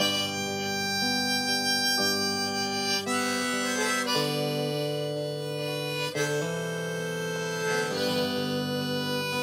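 Harmonica in a neck rack played together with a strummed acoustic guitar: a melody of held notes over the guitar's chords, the notes changing about every second.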